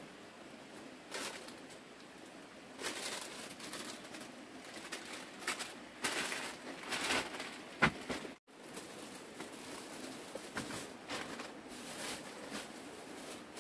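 Plastic shopping bags rustling and crinkling in irregular bursts as the goods in them are handled and sorted, with one sharp knock about eight seconds in, just before the sound briefly cuts out.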